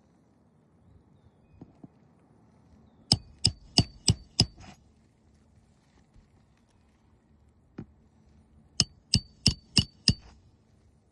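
Hammer driving nails during roof repair: two runs of five sharp blows, about three a second, each with a short metallic ring, the first run a few seconds in and the second near the end.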